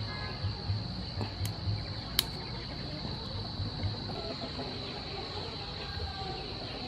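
Chickens clucking in short, repeated low calls through the first few seconds, over a steady high-pitched insect drone. Two sharp clicks come a second or two in as a cooked river prawn's shell is cracked and peeled by hand.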